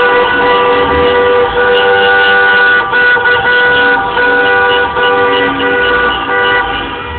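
Many car horns honking at once in long, overlapping blasts, sounded in celebration by drivers in jammed street traffic.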